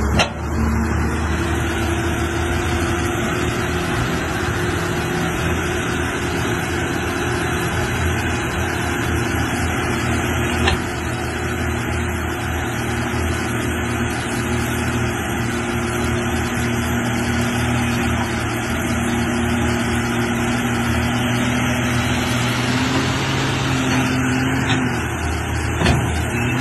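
Crawler excavator's diesel engine running steadily, a continuous hum with a held tone over it, and a couple of faint knocks.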